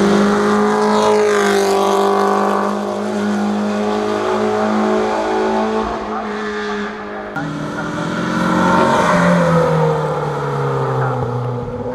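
A rally car's engine running hard at high revs on the hill climb, its note held steady for several seconds. The pitch then drops in a step about seven seconds in and falls again near ten seconds, like upshifts.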